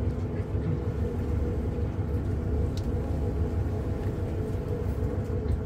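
Steady low rumble of an electric passenger boat under way, with a faint even hum over it, heard from inside its wooden passenger cabin.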